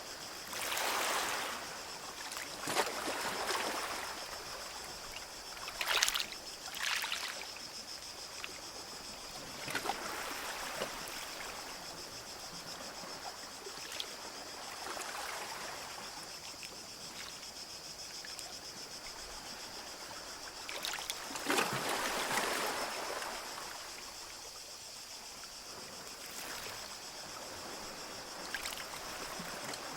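Small sea waves breaking and washing up a beach in irregular swells every few seconds, the largest about two-thirds of the way through. A steady high-pitched hiss runs underneath.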